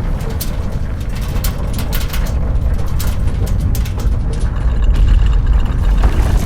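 Deep, continuous earthquake rumble, swelling a little about five seconds in, with scattered short crackles and clicks over it.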